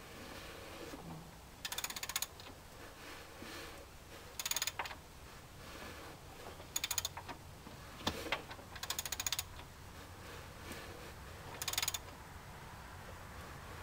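Ratchet wrench clicking in five short, rapid bursts, about one every two seconds, with a single sharper click between the fourth and fifth. The ratchet is turning a Ford 2.3L four-cylinder's crankshaft over by hand to take the slack out of a newly fitted timing belt.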